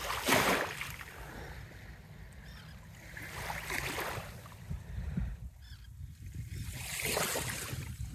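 Dog wading in shallow lake water, splashing in three swells of a second or so each, over a steady low wind rumble on the microphone.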